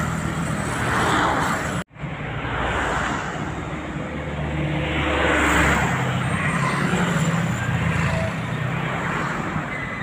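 Road traffic close by: motorcycles and cars passing with a steady engine hum. The sound cuts out for an instant about two seconds in.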